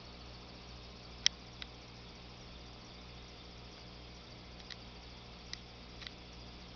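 Steady low hum of an aquarium air pump and tank equipment, with a few short, sharp ticks, the loudest about a second in.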